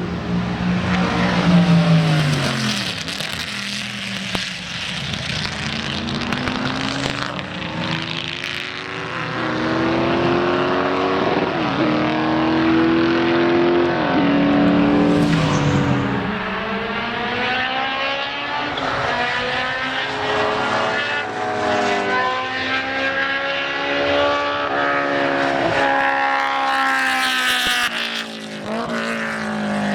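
Race car engines at speed on a circuit. The pitch climbs in steps through upshifts and drops away as the cars brake and pass, with several cars following one another.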